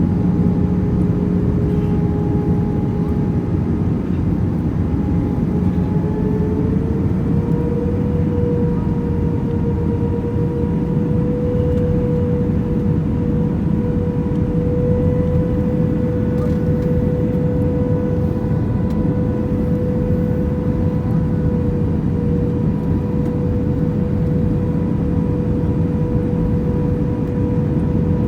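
Steady roar of an airliner's engines and rushing air, with a steady engine whine that rises slightly in pitch about seven seconds in.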